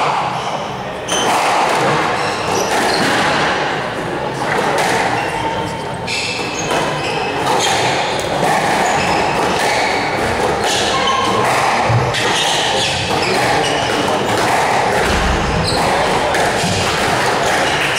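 Squash rally: the ball struck by rackets and smacking off the court walls in sharp, irregular hits, with short shoe squeaks on the wooden floor. Spectators murmur underneath in an echoing hall.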